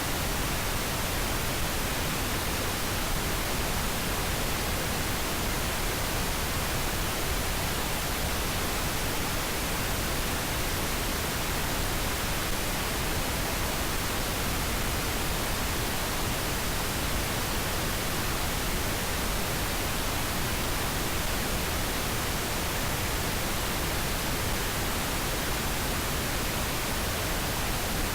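Steady, unchanging pink noise: an even hiss spread across all frequencies, with no breaks or changes.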